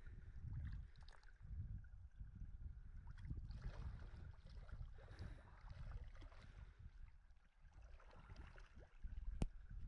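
Water sloshing and splashing in a shallow hot-spring pool as a person wades in and sits down, over a low rumble of wind on the microphone. A single sharp click near the end.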